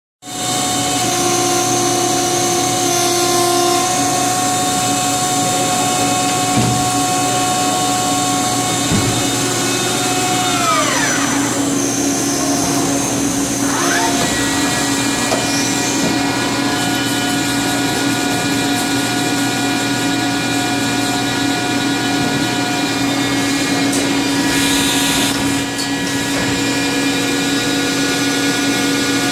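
1987 Okuma LB15 CNC lathe running smoothly under power, its spindle drive whining with several steady tones. About ten seconds in, the whine falls in pitch as the spindle slows. A few seconds later it climbs back up as the spindle speeds up again. A short hiss comes later on.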